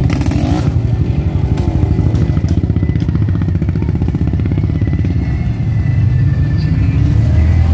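Small off-road vehicle engine running close by with a fast, even chug, getting a little louder near the end. A brief clatter comes right at the start.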